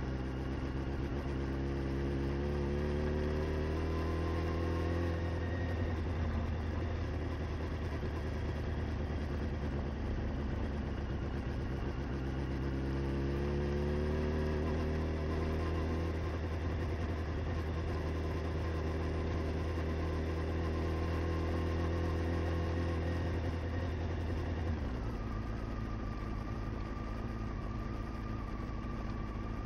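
Honda CBR motorcycle engine running at low speed across rough grass, rising in pitch twice as it accelerates, then easing off near the end as the throttle is closed.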